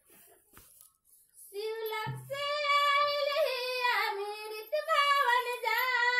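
A high-pitched voice singing a melody in long held, wavering notes, starting about a second and a half in, with no instruments.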